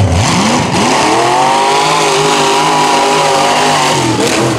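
Mud truck's engine revving up hard, climbing steeply in about a second, then held at high revs and wide-open throttle, and easing off near the end, as it charges through a mud pit.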